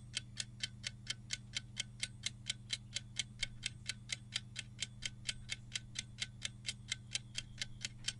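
Countdown-timer ticking sound effect, like a clock, about three ticks a second at an even pace, over a faint steady low hum.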